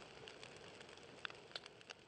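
Faint fire crackling from a fiery explosion sound effect as it dies away: scattered small crackles over a fading hiss.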